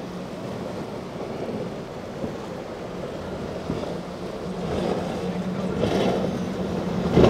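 Motorboat engine running with a steady hum over wind and wave noise, getting louder toward the end.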